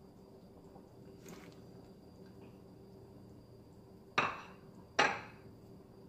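Two sharp clinks of kitchen dishware, under a second apart, each ringing out briefly over a faint steady hum.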